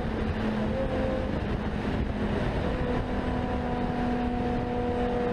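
A vehicle engine running at highway speed under road and wind noise. Its steady pitch creeps slightly upward in the second half.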